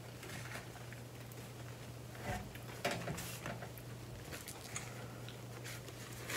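A person chewing a mouthful of food, with faint soft wet mouth sounds and a few small smacks, over a steady low hum.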